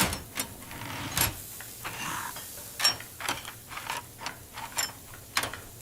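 Scattered light clicks and taps of small hard objects being handled and set down, several separate strikes over a few seconds, with a brief soft rustle about two seconds in.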